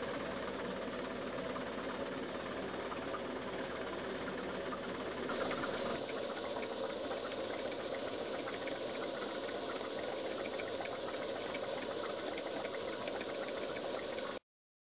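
Green Steam Engine piston engines running with a rapid, steady mechanical clatter of valves and pistons. The sound changes about six seconds in as a different engine runs, and it cuts off suddenly near the end.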